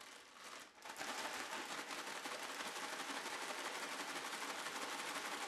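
Plastic bag of romaine salad mix being shaken hard to toss the leaves with freshly squeezed lemon juice: a dense, rapid crinkling and rustling of the plastic that builds during the first second and then keeps on steadily.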